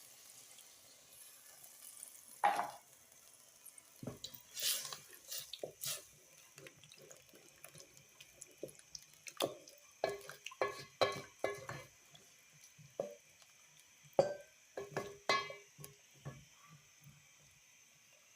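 Scattered drips and small splashes of water, with light clinks of a metal cooking pot and utensils, as water is added to a pot of cooking okra.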